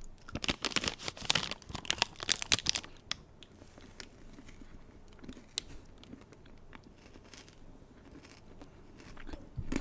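Crinkly plastic wrapper being handled and torn, with dense crackling for about three seconds, then only a few scattered crackles.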